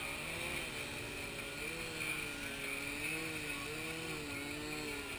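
Several nitro glow engines on RC profile aerobatic planes running together in a hover, their pitches wavering up and down as the throttles are worked.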